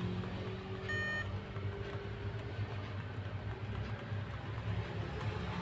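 A single short electronic beep about a second in, over a steady low hum.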